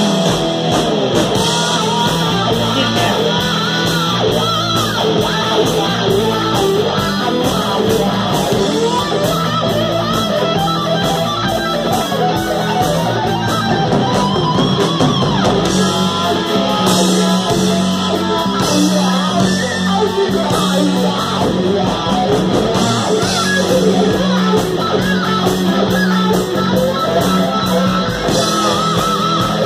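Live amplified rock band playing: distorted electric guitar over a drum kit, with a woman singing at the start before the song carries on with guitar leading.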